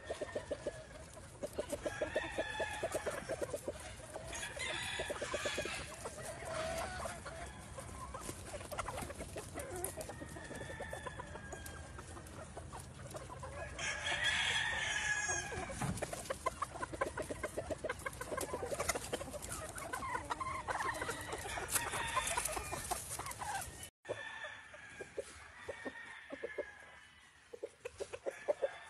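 Gamefowl hens and roosters clucking steadily in quick runs, with a rooster crowing once, the loudest call, about halfway through.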